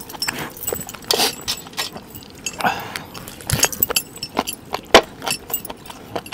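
A person eating mutton with his hands, close to the microphone: many sharp wet mouth smacks and clicks, with metal bracelets and rings jangling as he eats.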